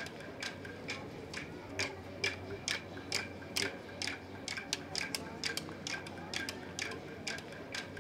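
Aboriginal wooden clapsticks struck together in a steady ceremonial beat: sharp clicks about twice a second, each with a short wooden ring.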